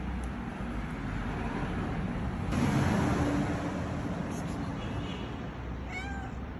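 Steady road-traffic rumble that swells loudest about halfway through as a vehicle passes. Near the end a tabby cat gives one short meow.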